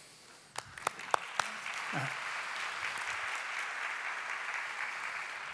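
Audience applauding in a large hall: a few separate claps at first, swelling about a second and a half in into steady applause.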